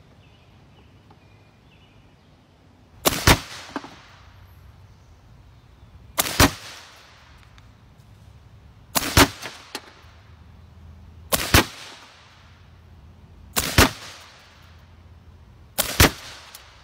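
Six shots from a B&W S45 .45-calibre semi-automatic pre-charged pneumatic air rifle, fired one every two to three seconds; each report is a sharp double crack lasting a split second.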